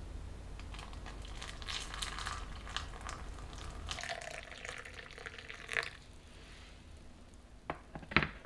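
Water poured from a kettle into a ceramic cup over a drip-bag coffee: a splashing trickle for several seconds that stops about six seconds in. A couple of short sharp clicks follow near the end.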